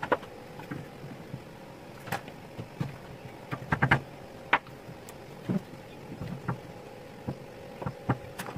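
Screwdriver blades prying and clicking against an old electric drill's housing as it is taken apart: scattered sharp clicks and knocks, with a quick cluster of them about four seconds in.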